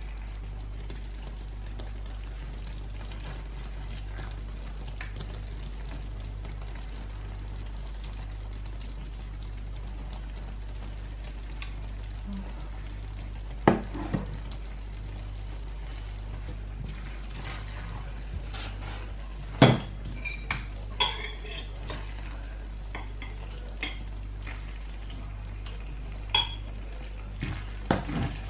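A spatula stirring and tossing creamy pasta in a stainless steel frying pan: soft scraping with a few sharp clinks of metal on the pan, the loudest about halfway through and several more in the second half, over a steady low hum.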